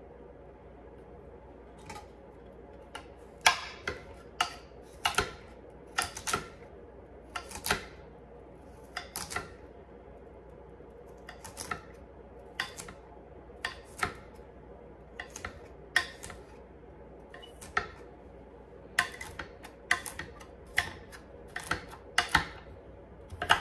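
Chef's knife dicing carrots on a granite cutting board: sharp, irregular knocks of the blade striking the stone, one or two a second, starting about two seconds in.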